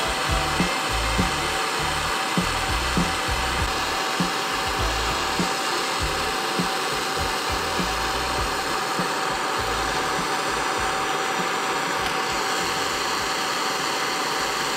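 Turbo blowtorch flame hissing steadily, with irregular low pops during the first half. The sound cuts off suddenly at the end.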